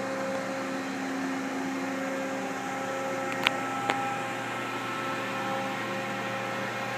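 A steady background machine hum made of several fixed tones over a low noise floor, with two sharp clicks about three and a half and four seconds in.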